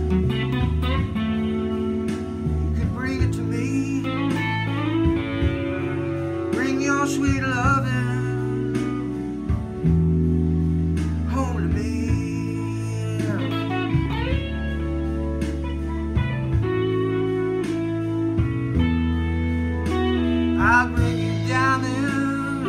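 Fender Stratocaster electric guitar playing an instrumental blues break with bent notes, over low held bass notes.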